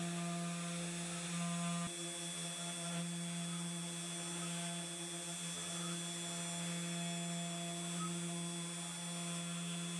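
Spindle motor of a CNC 3018 Pro desktop mill running with a steady hum while its single-flute engraving bit cuts letters into pine.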